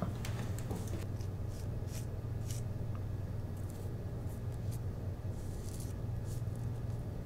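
Light, short scratching strokes from hands working over paper at a table, irregular, about one or two a second, over a steady low hum.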